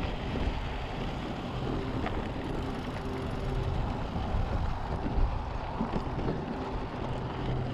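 Mountain bike rolling down a dirt double track: a steady rumble of tyres on dirt, with a few light knocks along the way.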